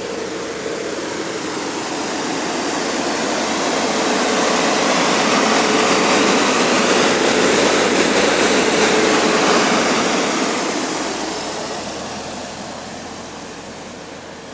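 A double-decker bus's electric engine cooling fan blowing hard through the rear grille: a steady rushing sound with a faint hum in it, rising to its loudest midway and fading near the end.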